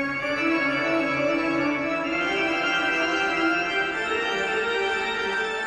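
Show soundtrack music: a sustained, organ-like chord that comes in suddenly and holds, with a few lower notes shifting, easing off slightly near the end.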